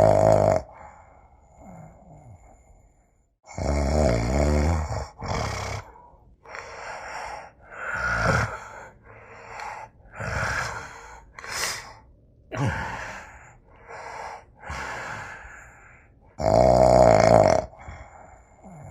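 A person snoring. There is a loud, buzzing snore about four seconds in and another near the end, with a string of shorter, quieter snoring breaths between them.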